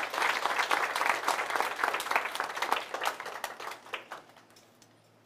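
Small audience applauding, a dense patter of hand claps that thins out and dies away about four seconds in.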